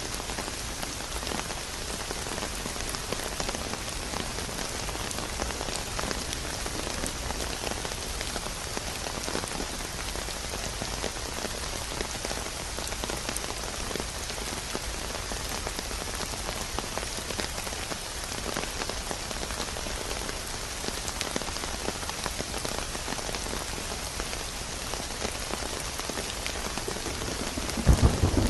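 Steady, heavy rain falling on a surface, a dense patter of drops. Near the end a loud, low rumble of thunder breaks in.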